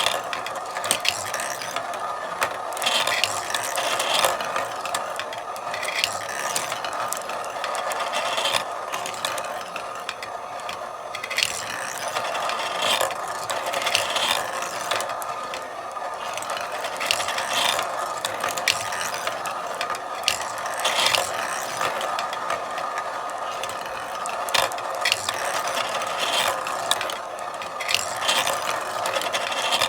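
Marble run in motion: marbles rolling steadily along the tracks, with frequent irregular clicks and clacks as they hit and drop.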